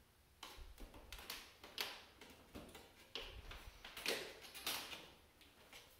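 Hands working a wire-cored spike into a creature suit's skin make a run of irregular rustles, scrapes and light knocks, faint and close by.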